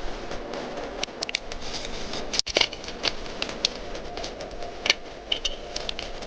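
Irregular small clicks and taps of tools and parts being handled at a repair bench, over a steady low hum. The sound cuts out briefly about two and a half seconds in.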